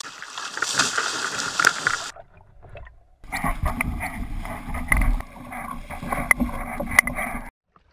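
Water splashing and churning against the side of a sea kayak as a hooked tope thrashes at the surface, with a few sharp knocks in the second half. The sound breaks off about two seconds in and resumes a second later.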